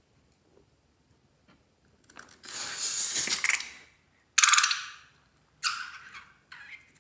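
Slime being squeezed and worked by hand: a long crackly squishing sound about two seconds in, then three shorter ones.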